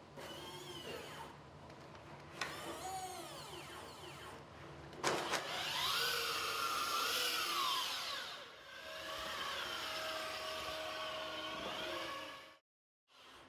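Robot foley sound effects: motor-like whirring whines that glide up and down in pitch, with a couple of sharp clicks, in separate takes that end in a sudden cut to silence near the end.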